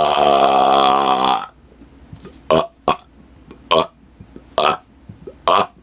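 A man belching: a long, loud, pitched burp that cuts off about a second and a half in, followed by five short little burps spaced out over the following seconds.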